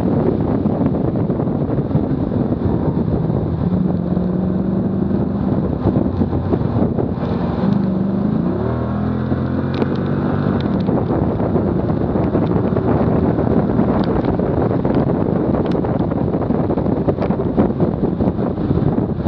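Heavy wind rush over a bumper-mounted camera at track speed, with the car's engine running under it. About eight to nine seconds in, the engine pitch jumps up in quick steps as the car brakes from 85 mph and downshifts for a corner, then settles lower.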